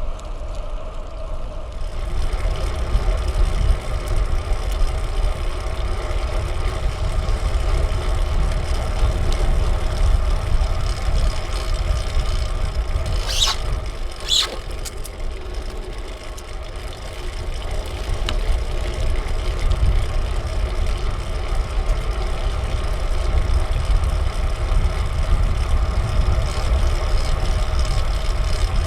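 Riding a fixed-gear bicycle: a heavy, steady rush of wind buffeting a small action camera's microphone, over a steady hum of tyres and drivetrain. Two short high squeaks come about halfway through.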